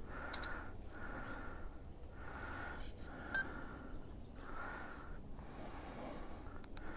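Electric bike hub motor whining faintly as it spins on throttle with no load. The whine holds one high pitch and drops out briefly about once a second.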